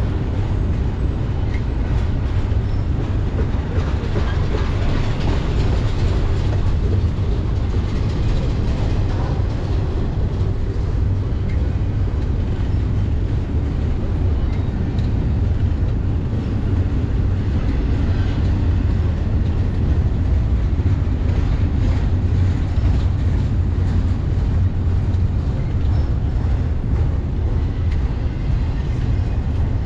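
BNSF double-stack intermodal freight train's loaded well cars rolling past: a steady, deep rumble of steel wheels on the rails.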